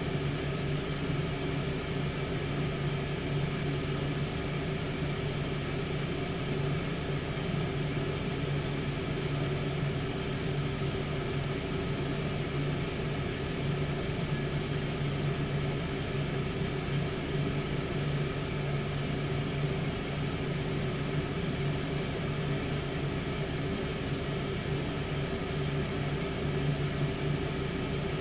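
Tower air fryer running while it cooks: its fan gives a steady, even hum with a low drone.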